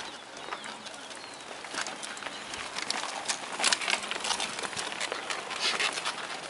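Mountain bike tyres crunching and rattling over loose stones and gravel, a rapid, uneven run of clicks that grows louder as a rider passes close, about four seconds in.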